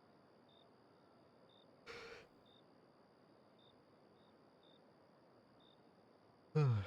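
Quiet room tone with faint high chirps roughly once a second. A short breath comes about two seconds in, and a man's voiced sigh with falling pitch comes near the end.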